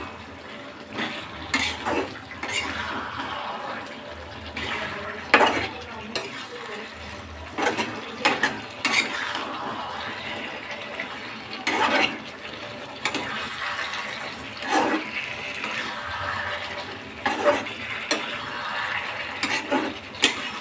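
A metal spatula stirring chicken in sauce in a kadai, knocking and scraping against the pan at irregular moments every second or two, over a steady hiss from the pan.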